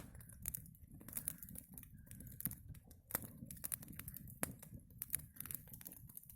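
Small twig campfire crackling: irregular sharp snaps and pops, a few a second, over a steady low rumble.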